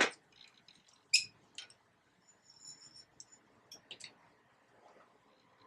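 Sharp plastic clicks and clacks from handling a hair crimper, with a brief high squeak between them: a loud clack at the start, then a few scattered clicks.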